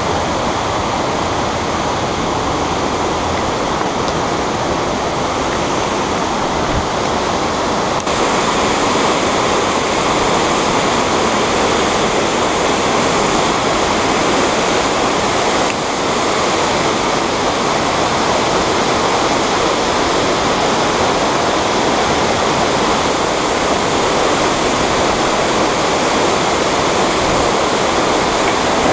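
Steady, loud rush of a waterfall pouring into a pool, with the fast stream running over stones below it.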